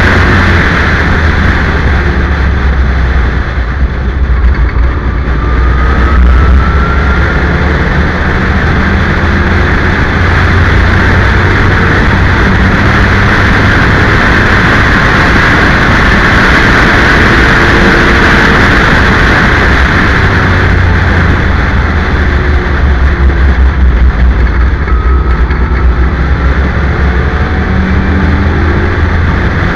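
Open-cockpit race car's engine running at speed on track, loud and steady, with wind rushing over an onboard microphone. The level dips briefly about four seconds in.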